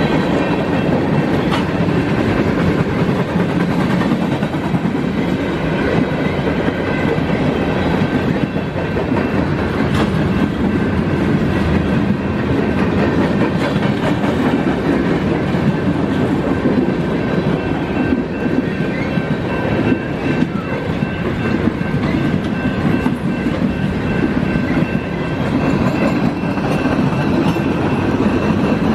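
Loaded freight cars of a BNSF mixed freight rolling past at trackside: tank cars, a centerbeam flatcar and boxcars. The wheels and rails make a steady rolling rumble and rattle, with faint high steady ringing and an occasional sharp clank.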